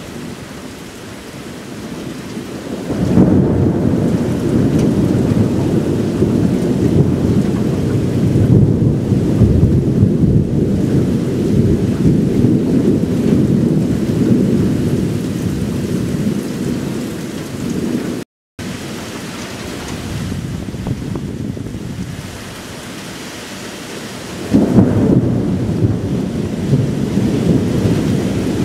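Thunder rolling over steady rain. A long, deep rumble breaks in about three seconds in and rolls on for some fifteen seconds. The sound cuts out for an instant, and then a second peal breaks out near the end.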